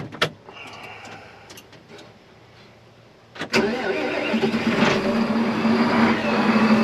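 Fendt 943 Vario tractor's diesel engine being started: a few clicks and a faint whir, then about three and a half seconds in the engine catches suddenly and settles into a steady run with a low hum, growing slightly louder.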